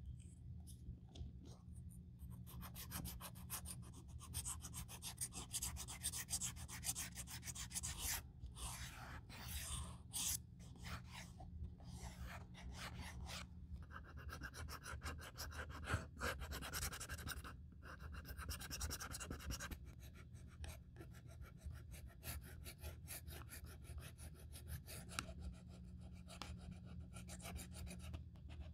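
Fine sandpaper rubbing back and forth along the edge of a grained leather handbag in quick short strokes, a soft scratchy rasp with a few brief pauses, smoothing the dried repaired edge.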